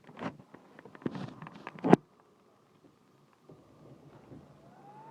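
Handling clatter and a sharp knock about two seconds in as a power cable is plugged into a PlayStation 3 console, then, after a short pause, the console's cooling fan starting and spinning up with a rising whine near the end.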